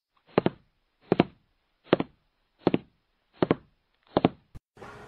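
Six evenly spaced double knocks or taps, about one pair every three-quarters of a second, played as a sound effect under an animated title card. A short sharp click comes near the end, and then a steady background hum begins.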